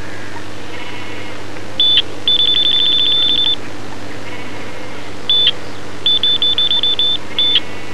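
High-pitched electronic beeps from a fishing bite alarm, sounding in irregular bursts: a single beep, then a rapid run of about a dozen, then another single beep, a shorter rapid run and a last short beep.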